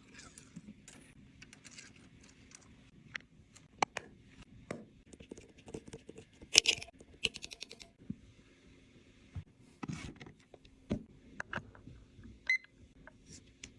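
Small tools and parts clicking and tapping on a phone-repair bench, with a quick run of sharp clicks about halfway through and a few heavier knocks later, over a steady low hum.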